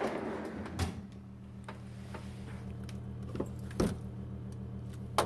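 Low steady hum from a refrigerator, broken by a few sharp clicks and knocks of the freezer being opened and handled.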